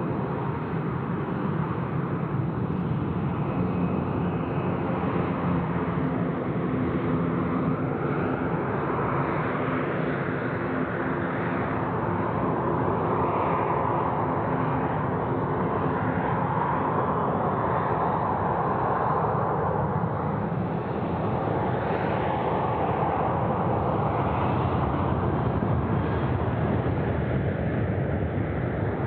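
Boeing 737-800's CFM56-7B turbofan engines running at low taxi power as the jet moves slowly along the runway: a steady whine over a rumble, holding several steady tones, with no sudden rise to takeoff thrust.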